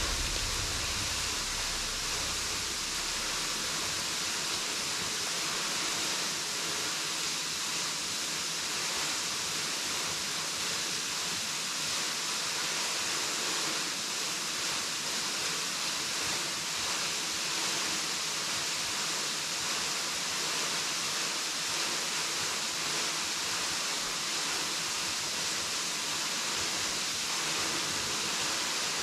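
Henrhyd Falls waterfall pouring, a steady, unbroken rush of falling water.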